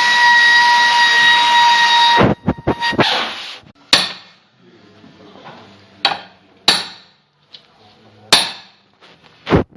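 A loud, steady, high whistling hiss from a workshop tool cuts off about two seconds in. It is followed by a short burst of knocks and then single sharp metallic knocks and clanks every second or two, as metal parts are struck and handled.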